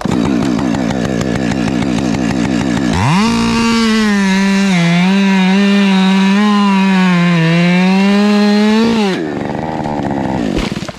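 Chainsaw running at idle, then revved to full throttle about three seconds in and cutting through dead ash wood, its pitch dipping and recovering as the chain loads in the cut. About nine seconds in it drops back to idle.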